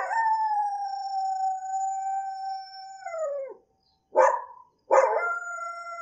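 A dog howling: one long, even howl that drops in pitch and dies away after about three and a half seconds, a short call about four seconds in, then a second howl that starts about a second later and steps down in pitch.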